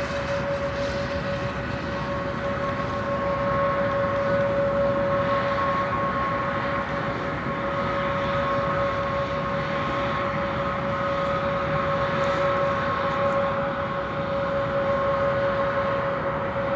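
Airbus A321XLR prototype's turbofan engines running as it rolls on the ground: a steady whine over an even rushing noise, holding pitch throughout.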